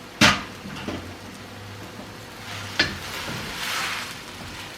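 Cooking utensil knocking against a wok: a sharp clack about a quarter-second in, a lighter one soon after and another near three seconds, followed by a short burst of stirring noise as noodles cook in stock.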